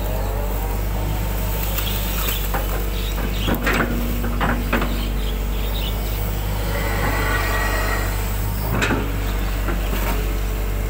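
Hitachi 120 hydraulic excavator's diesel engine running steadily under load while it digs and dumps mud, with a few sharp knocks from the bucket and boom a little past three seconds in and again near nine seconds.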